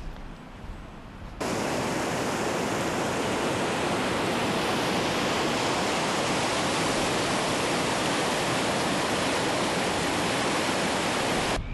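Floodwater rushing over a flooded road ford and pouring off the edge of the causeway: a steady, loud rush of water that starts abruptly about a second and a half in and cuts off just before the end.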